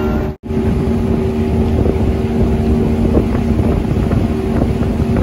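Small boat's outboard motor running steadily under way, a constant hum with wind and water noise on the microphone. The sound drops out for an instant less than half a second in.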